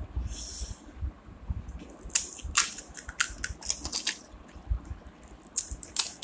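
Crisp phuchka (pani puri) shells cracking as they are broken open with fingers and bitten, a string of sharp crackles, with chewing and eating noises.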